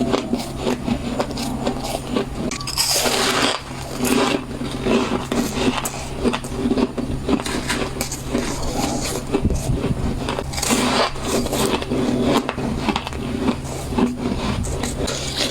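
Frost crunching close to the microphone in a dense, continuous run of crisp crackles, louder about three seconds in.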